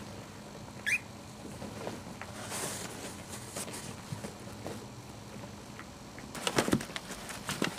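Maltese puppy scrabbling on cardboard and carpet as it clambers out of its box. There is one short, high, rising squeak about a second in, and a quick flurry of claw scratches and knocks near the end.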